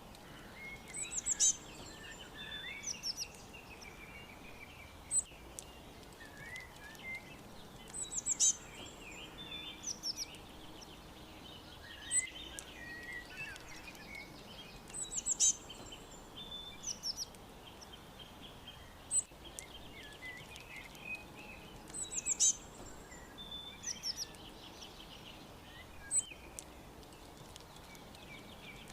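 Several songbirds chirping, over a faint steady background hiss. A short burst of very high, rapid chirps recurs every few seconds over a softer, continual twitter.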